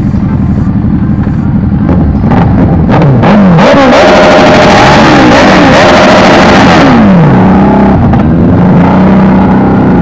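Motorcycle engine revved hard several times, very loud, the pitch rising and falling quickly between about two and eight seconds in, then settling back to a steadier low running note.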